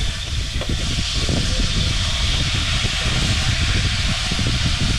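Fish frying in hot oil in a steel wok over a wood fire: a steady sizzle, with a low rumble underneath.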